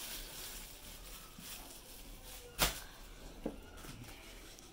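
Faint rustling of a plastic bag around a cable, with one sharp knock about two and a half seconds in and a smaller click a moment later.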